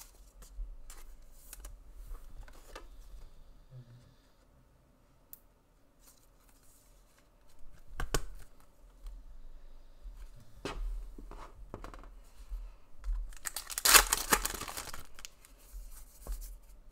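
Foil NRL trading-card pack wrappers being torn and crinkled, with cards handled and scattered light clicks. The loudest tearing comes near the end, after a few seconds of near silence in the middle.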